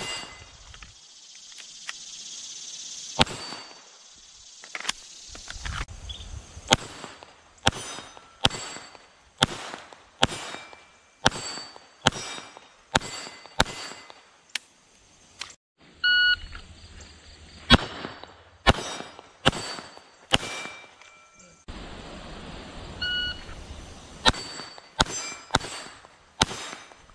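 Semi-automatic pistol fired in quick strings of shots at steel targets, which ring on hits. An electronic shot timer beeps twice, about sixteen and twenty-three seconds in, and each beep is followed by a string of shots.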